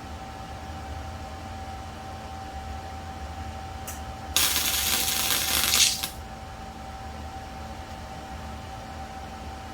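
Electric arc welder laying a short weld, a burst of crackling arc that starts suddenly about four seconds in and cuts off after about a second and a half, over a steady low hum.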